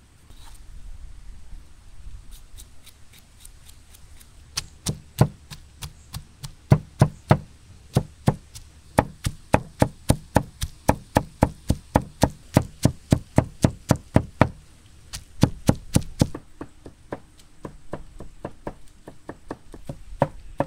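A large knife chopping zucchini into minced meat on a wooden cutting board: a steady run of knocks at about three a second, strongest through the middle and lighter near the end.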